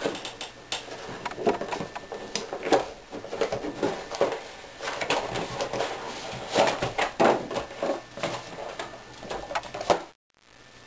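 Hard plastic wrap and a cardboard puzzle-cube box being handled and opened: irregular crackling, clicking and rustling. The sound drops out briefly near the end.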